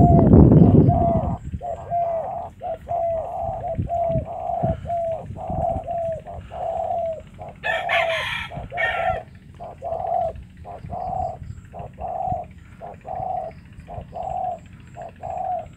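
Spotted doves cooing, a long steady run of short low coos at about two a second. A loud low rumble fills the first second, and a brief hissing burst comes about eight seconds in.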